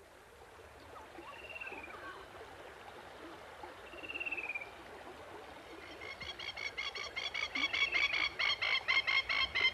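Bird calls in bushland: two short descending whistles a few seconds apart. About six seconds in, a fast, evenly repeated pulsing call starts and grows louder.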